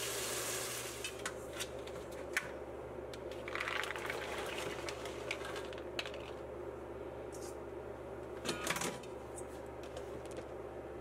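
The pour of chicken broth into the hot pot hisses and fades out about a second in; then red beans are tipped from a plastic bowl into the pot, with scattered clicks and clatter of bowl and beans against the pot and a louder knock of clicks near the end.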